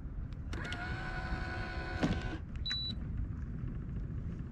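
Bow-mounted electric trolling motor on a kayak running with a steady whine for about two seconds, dipping in pitch as it stops, followed by a short high beep.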